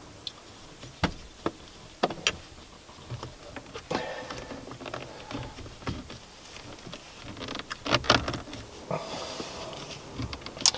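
Scattered sharp clicks, taps and rustling of small hardware being handled as a steering-wheel spinner knob's clamp is fitted onto the steering wheel, with a cluster of louder knocks about eight seconds in.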